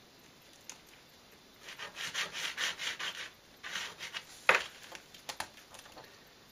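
Pencil scratching across paper as lines are drawn: a run of quick scratchy strokes lasting about a second and a half, then another short stroke. A sharp tap comes just past the middle, followed by a few lighter ticks.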